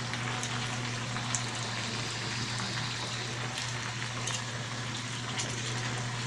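Steady low sizzle of duck pieces in a frying pan over a constant low hum, with a few light clicks of metal tongs and a fork against the pan.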